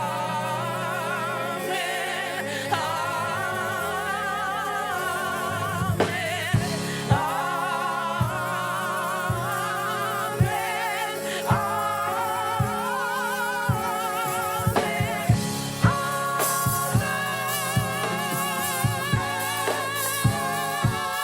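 Gospel worship singing: voices holding long notes with wide vibrato over a steady sustained note, with drum hits that come more often in the second half.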